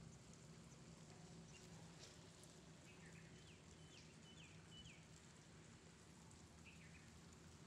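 Faint light rain with scattered drop ticks, and a small bird chirping four quick notes about three seconds in, with another brief call near the end.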